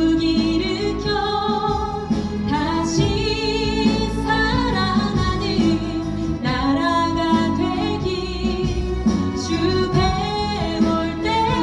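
A woman singing a Korean Christian praise song solo into a microphone over instrumental accompaniment, holding long notes with vibrato.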